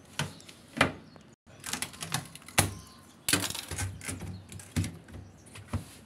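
Handling noise: irregular clicks, knocks and rustles, with a denser run of clicks a little past halfway, as hands work around the washing machine's door.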